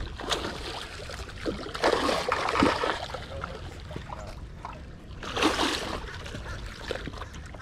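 A hooked fish thrashing and splashing at the water's surface as it is brought in close on the line, in two bouts: about two seconds in and again about five and a half seconds in.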